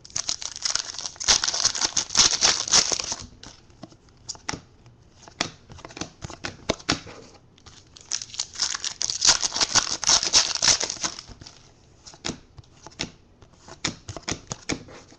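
Foil trading-card pack wrappers being torn open and crinkled, in two long spells: one at the start and one about halfway through. Between them come scattered clicks and rustles of the cards being handled.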